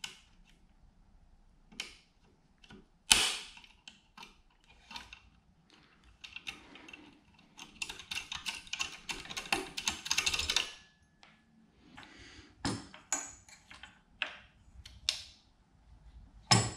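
Metal clicking and scraping as a snap ring is worked off a control-gear shaft on an outboard motor with a hand tool: scattered clicks, a sharp click about three seconds in and another near the end, and a run of rapid clicking rattle in the middle.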